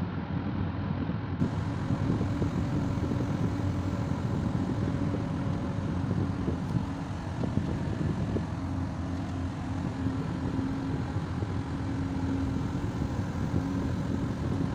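Motor vehicle running on the road: a steady low rumble of engine and road noise, with a faint steady hum joining in about halfway through.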